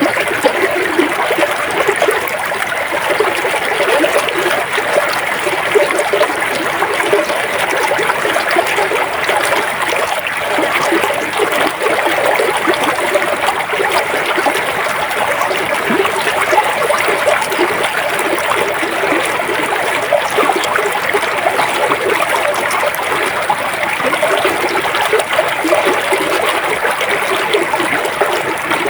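A river or stream flowing steadily, water rushing and burbling over rocks with a continuous splashing texture.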